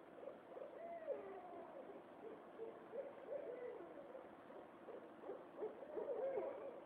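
Owl hooting: a run of low, wavering hoots, most of them near the end.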